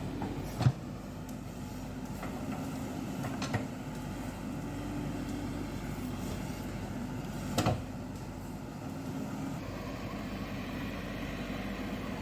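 JCB excavator engine running steadily, with sharp knocks: one near the start, another a few seconds later, and a double one past the middle.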